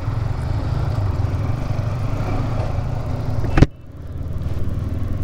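Motorcycle engine running steadily with a low rumble. About three and a half seconds in there is a single sharp click, and after it the sound drops away briefly and builds back up.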